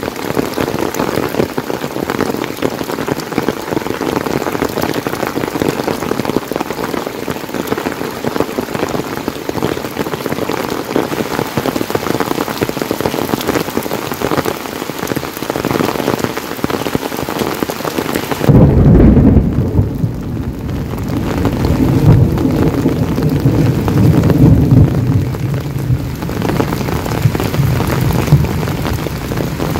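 Heavy rain falling steadily on surfaces. About two-thirds of the way in, a long, loud low rumble of thunder sets in over the rain and rolls on for several seconds before fading back.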